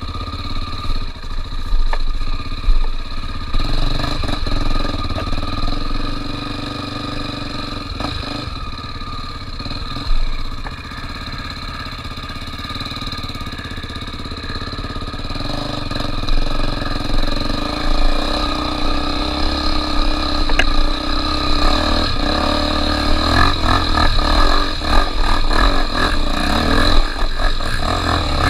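Trail motorcycle engine running under way in a steady drone, getting louder from about halfway and uneven with revs and knocks in the last few seconds.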